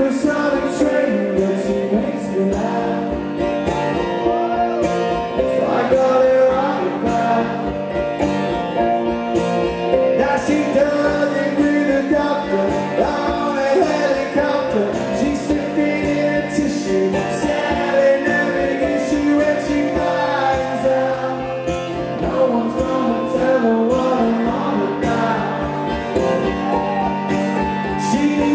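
Live rock band playing an instrumental stretch of the song: guitars over a steady, driving drum beat.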